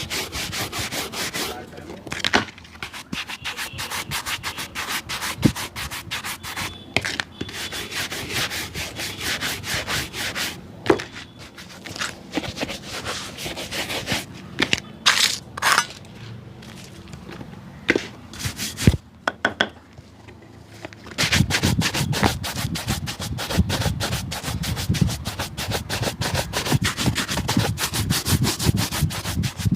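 Rapid back-and-forth rubbing strokes on a shoe, several strokes a second, with a few sharp knocks along the way. About two-thirds of the way through the strokes become faster and heavier.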